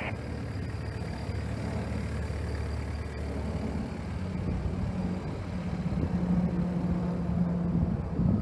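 Takeuchi compact excavator's diesel engine running while the upper structure swings around on the tracks. A steady low hum grows slightly louder, and a higher drone comes and goes over the second half.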